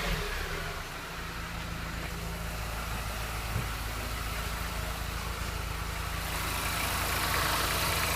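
2005 Mini Cooper S's supercharged 1.6-litre four-cylinder engine idling steadily just after starting, with a single short knock about three and a half seconds in.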